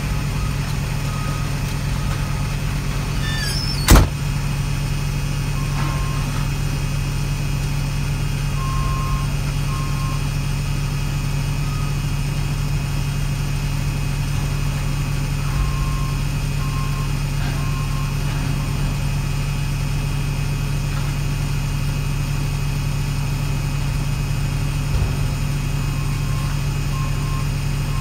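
Heavy truck's diesel engine running steadily at an even pitch, with one sharp click about four seconds in.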